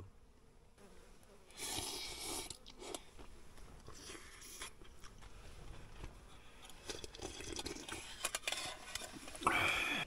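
A person eating with chopsticks from a camp pot: noisy slurps and chewing, with a few light clicks, the loudest slurp near the end.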